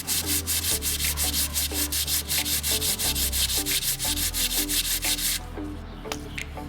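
Sandpaper rubbed by hand back and forth along a freshly carved wooden hammer handle, about four quick strokes a second, stopping about five seconds in.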